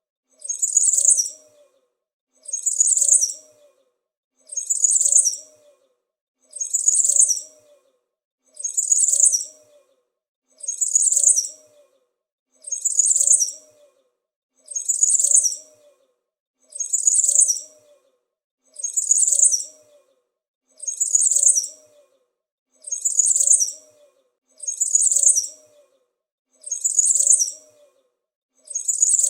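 A small bird's short chirping phrase, high-pitched, repeated about every two seconds with a silent gap between each: one recorded chirp looped over and over.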